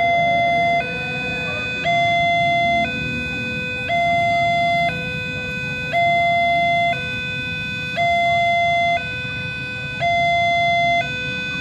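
Railway level-crossing warning alarm sounding a two-tone electronic ding-dong, alternating a higher and a lower tone about once a second, which warns that a train is approaching. A low rumble of motorcycle traffic runs underneath.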